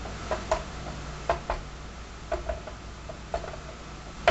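Light clicks, mostly in pairs, repeating about once a second over a low steady hum.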